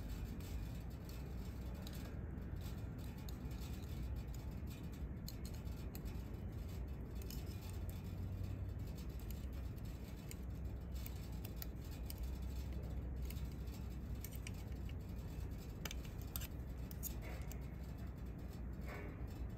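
Faint light metallic clicks and scrapes as a sewing machine's automatic thread-trimmer knife and needle plate are worked by hand, checking that the knife does not strike the knife plate, over a steady low hum.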